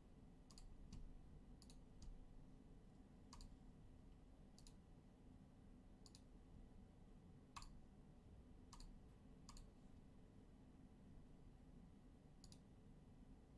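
Near silence broken by about eleven faint, sharp clicks at irregular intervals, a second or so apart.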